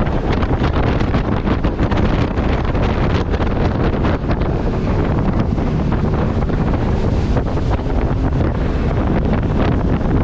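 Wind buffeting the microphone of a fast-running open boat, a steady loud rush with the drone of the outboard motors and water rushing along the hull beneath it.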